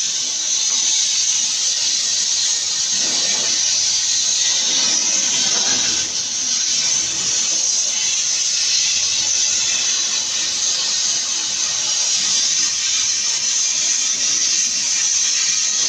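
Welding torch hissing steadily while aluminium is welded.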